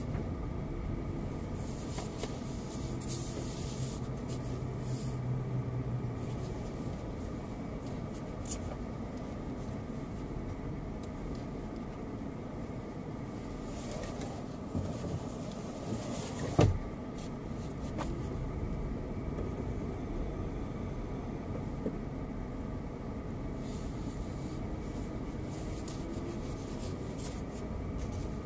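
Car driving, with a steady low rumble of road and engine noise. A single sharp knock about halfway through is the loudest sound.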